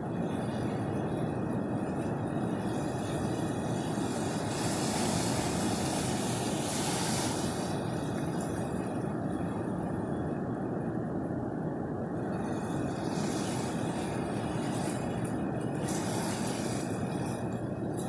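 Pacific Ocean surf washing in over sand and around rocks: a steady rumble of breaking waves, with a brighter hiss of foaming wash rising about five seconds in and again a few times near the end.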